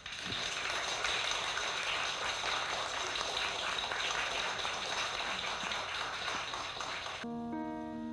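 Audience applauding for about seven seconds, cutting off suddenly as harp and piano notes begin near the end.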